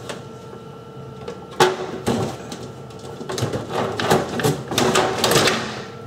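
Plastic and metal clicking and rattling as a freezer drawer's slide rail is worked loose and pulled out: one sharp click about one and a half seconds in, then a run of rattling clicks from about three seconds in until shortly before the end.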